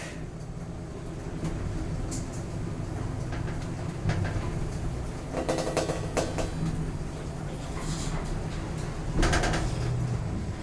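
Passenger lift running, with a steady low hum from its machinery and a few short clicks.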